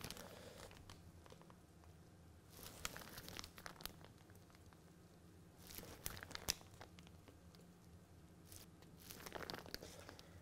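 Faint crinkling of a plastic piping bag being squeezed as batter is piped, in four short bursts a few seconds apart.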